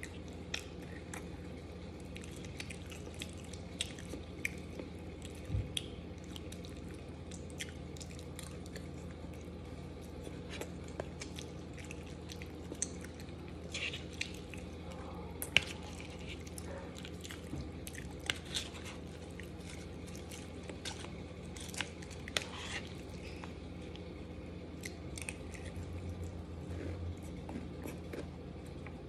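Close-up chewing and wet mouth sounds of a person eating chicken Alfredo with a spoon, with scattered short sharp clicks, over a steady low hum.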